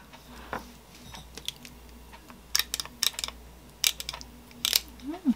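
Metal spring-release scoop clicking and tapping against a glass container and plate as thick Greek yogurt is scooped out: about six sharp clicks in the second half, with a brief rising-and-falling squeak near the end.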